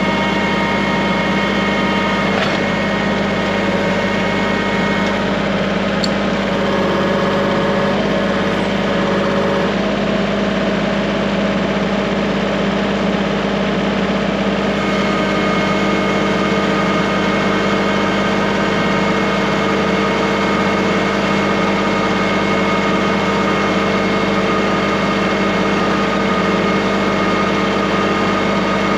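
An engine running steadily at one constant speed, with no revving up or down.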